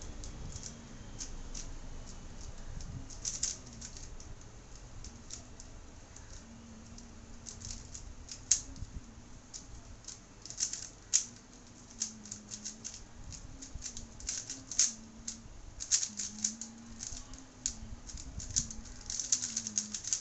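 A 3x3 Rubik's cube being turned fast by hand in a speed-solve: irregular flurries of sharp plastic clicks and clacks as the layers snap round, getting busier about a third of the way in.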